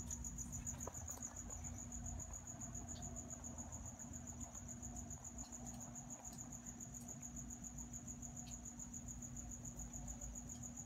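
Crickets trilling, a continuous high-pitched pulsing chirp, over a faint steady low hum.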